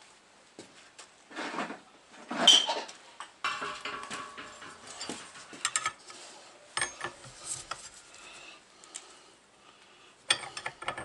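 Steel spanner clinking and scraping on bolts and nuts clamped in a bench vise, as two nuts locked against each other on a bolt are turned to unscrew it. Scattered clicks, one loud knock about two seconds in, a rasping scrape just after, and a run of clinks near the end.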